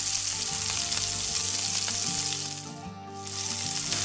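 Chopped tomato, onion and bell pepper sizzling in hot oil in a frying pan as a spatula stirs them, over background music. The sizzle drops away briefly about three seconds in, then comes back.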